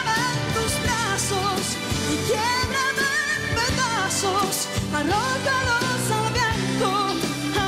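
A live band playing a Spanish-language pop ballad: a woman singing with a wavering vibrato over keyboard and electric guitars, with steady cymbal hits.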